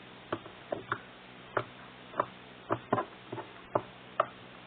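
Slime being squeezed and pressed by hand, making short wet clicks and pops at an uneven pace, roughly two or three a second.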